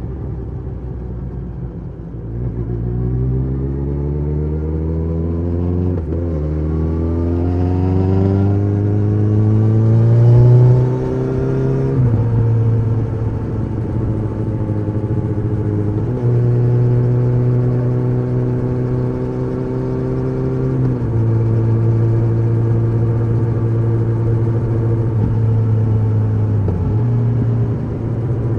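Kawasaki ZX-14R's inline-four engine with an Akrapovič muffler, giving a deep exhaust note under way. It rises in pitch as it accelerates from about two seconds in, with a brief break about six seconds in, and is loudest around ten seconds in. It then holds steady revs while cruising, with a few short breaks.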